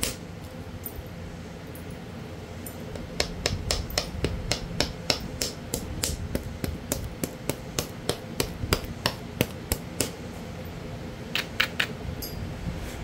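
Knapping tool working the edge of a Florida coral arrowhead preform: a run of sharp clicks, about three a second for several seconds, then three more close together near the end.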